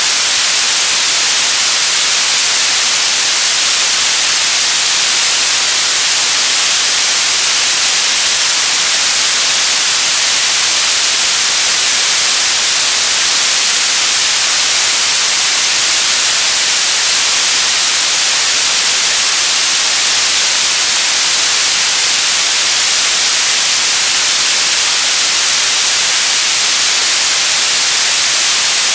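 Radio static: a steady, loud hiss, strongest in the high frequencies, unchanging throughout.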